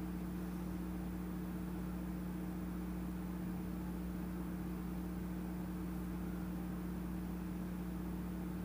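Steady low hum over a faint even hiss, unchanging throughout.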